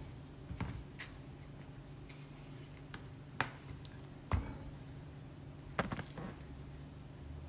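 Faint handling sounds of hands peeling ripe bananas: a few sharp clicks and soft snaps at irregular intervals as the peels are broken and pulled away, over a steady low hum.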